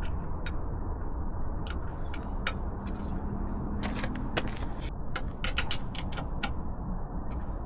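Scattered sharp metallic clicks and taps, a dozen or more, from exhaust fittings and a tight mounting clip being handled and pushed into place, over a steady low background rumble.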